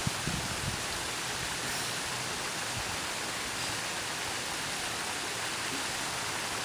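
Steady rushing of a rock waterfall pouring into a pond, an even hiss-like wash of water.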